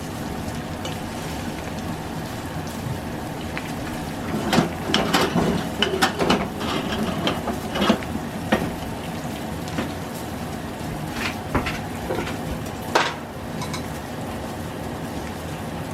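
Kitchen utensils clattering and scraping against a pan and dishes, a burst of knocks in the middle, over a steady sizzle-like hiss.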